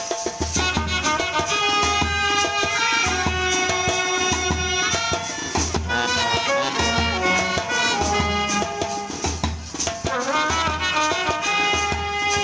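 Indian brass band playing a tune: wind instruments carry a sustained melody over sousaphone bass and a steady drum beat.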